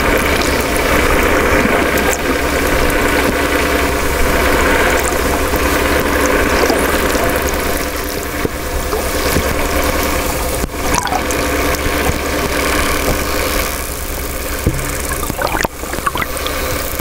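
Steady mechanical hum with many even tones, like a boat engine idling, heard through the water. It eases slightly near the end, where a few sharp clicks come through.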